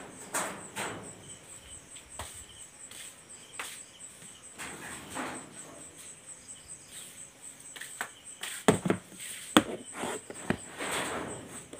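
Crickets chirping steadily in a high, even pulse of about four chirps a second. Over it come footsteps and handling noises, with a few sharp knocks about nine seconds in, the loudest sounds here.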